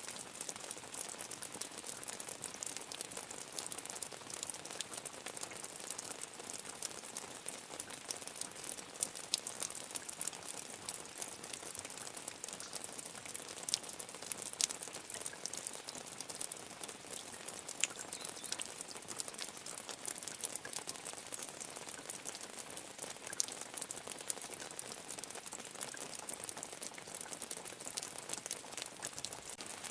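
Medium rain falling steadily, a dense patter of many small drops ticking on a surface.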